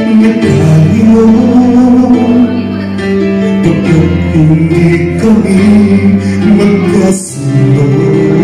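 A man singing into a handheld microphone over instrumental accompaniment, holding long notes, with a short break in the sound near the end.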